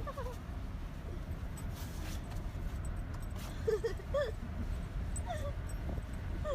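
Dog whimpering: a few short, high whines that bend in pitch, clearest about four seconds in, over a steady low rumble.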